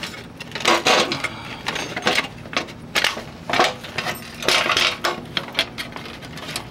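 Irregular metallic clanks and rattles of hand work on a window air conditioner's sheet-metal chassis while its capacitor, held in a strap, is worked loose.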